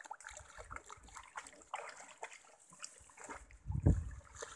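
River water splashing and trickling around a lamb being held in the water, with scattered small splashes and one loud low thump just before four seconds in.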